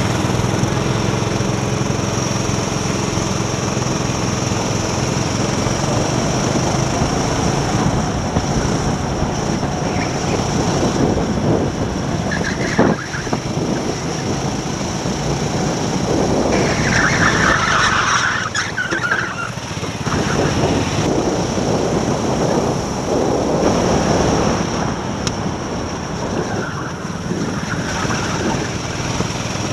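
Go-kart engine running under load as the kart laps the track, heard onboard, with other karts' engines around it.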